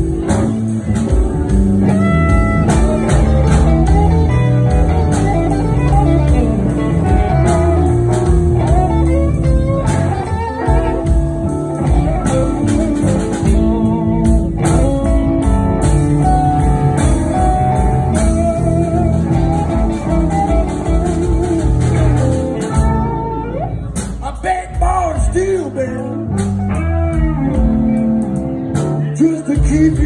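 Live electric blues band playing: electric guitars over bass guitar and a drum kit.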